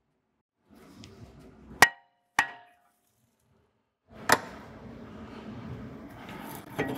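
A hammer strikes the back of a rust-seized steel front brake rotor three times to knock it off the hub. The first blow is the loudest, and the rotor rings briefly after the second. After the third blow there is a low scraping as the loosened rotor shifts on the hub.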